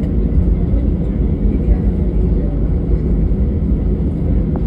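Inside the cabin of an airliner rolling along the ground after landing: a steady, loud low rumble of jet engines and wheels on the runway.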